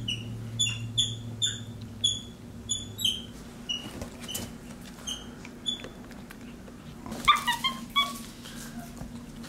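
Young capuchin monkey giving a run of short, high, squeaky chirps, each falling in pitch, two or three a second, then a quick cluster of lower calls about seven seconds in.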